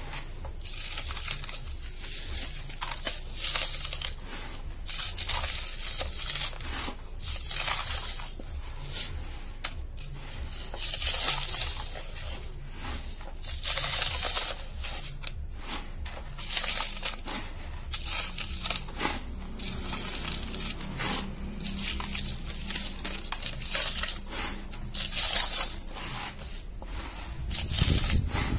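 Dry, dusty sand being crushed and crumbled by hand and pushed through a round cup mould, giving a run of uneven gritty crunches and rustles of falling grains.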